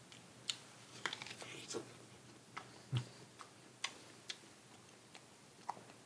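A person chewing a crisp apple close to the microphone: irregular crunches and mouth clicks, a quick cluster about a second in and a heavier crunch about three seconds in.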